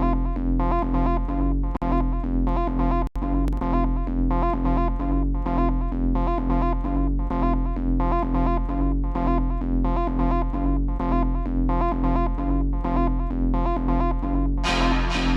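Electronic music loops from a Groovepad sound pack: an even, quick pattern of short synth notes over a steady low bass. A bright hissing cymbal-like wash comes in near the end.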